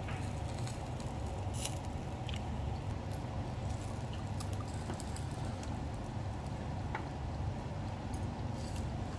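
Clear liquor trickling from a glass bottle into a small ceramic cup, over a steady low hum, with a few light clicks.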